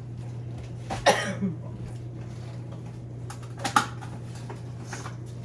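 Food containers and packages knocking and clattering as they are handled while a refrigerator is cleared out: two short knocks, about a second in and again near four seconds, over a steady low hum.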